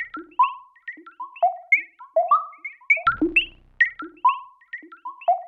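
Electronic music: a melody of short plucked synthesizer notes, each dropping quickly in pitch, over a low hit that comes again about three seconds in, the pattern repeating.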